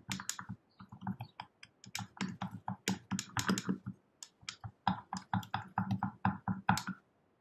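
Stick stirring old, settled paint in a small plastic jar, knocking and scraping against the sides in quick, irregular clicks that stop shortly before the end. The paint has separated from standing unused and is being mixed back up.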